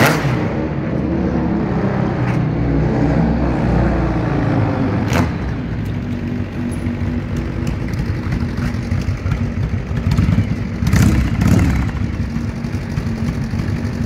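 Custom-built chopper motorcycle's V-twin engine running. Its pitch rises and falls over the first few seconds, then it settles to a steady idle with a short rev about eleven seconds in.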